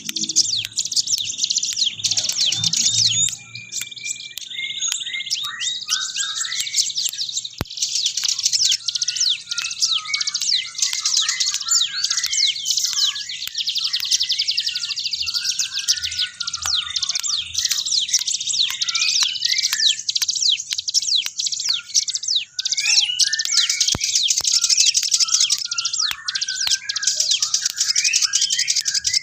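Little spiderhunter (sogok ontong) singing vigorously: a dense, almost unbroken stream of rapid high chirps and quick falling notes, with lower twitters mixed in.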